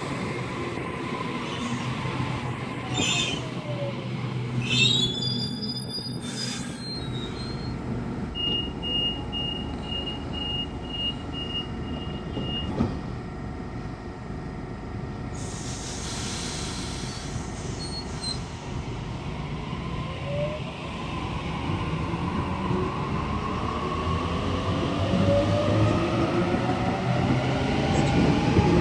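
Electric double-deck suburban trains at a station platform. The traction motor whine falls early on, then comes a run of short high beeps and a hiss. From about two-thirds of the way in, the motor whine rises and grows louder as a train pulls away.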